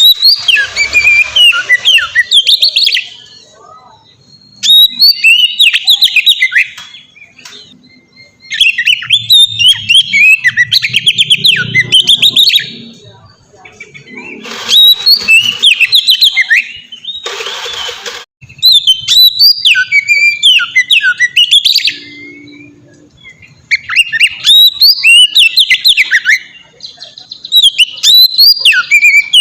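Oriental magpie-robin (kacer) singing in full, open song: loud phrases of rapid, sweeping whistled notes, each two to four seconds long, separated by short pauses. A brief hiss comes about seventeen seconds in.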